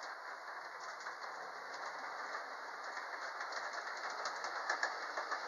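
G-scale model train running on track: wheels rattling and clicking over the rail joints, getting louder near the end.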